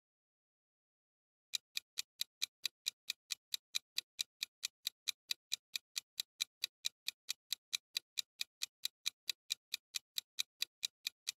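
Clock-ticking sound effect for a quiz countdown timer: rapid, even ticks, starting about a second and a half in, counting down the time left to answer.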